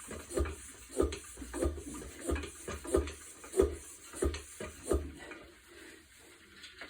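Hand pump being worked in steady strokes, about three every two seconds, charging a tubeless air-shot inflator chamber with pressure; the strokes stop about five seconds in.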